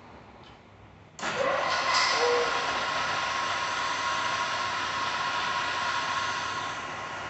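2 HP Wells Index Model 847 vertical milling machine starting up about a second in: the spindle motor spins up with a rising whine, then runs steadily with a hum. It gets a little quieter near the end.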